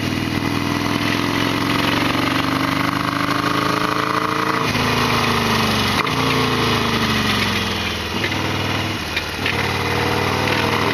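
Harley-Davidson Sportster XL1200's air-cooled V-twin running under way: the engine pulls up through the revs for about four and a half seconds, breaks off briefly as at a gear change, then the revs fall away for a few seconds and pick up again near the end.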